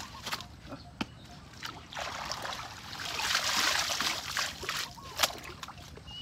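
Water splashing and sloshing, swelling to its loudest about three to four seconds in, with a few sharp knocks before and after.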